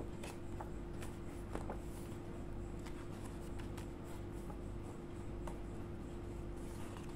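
Paper and card inserts rustling and sliding as they are handled, with scattered light clicks, over a steady low hum.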